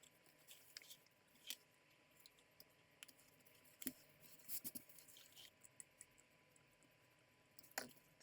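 Near silence broken by a few small, sharp clicks and taps from handling the laptop's plastic case parts and tools, the loudest about four seconds in and near the end.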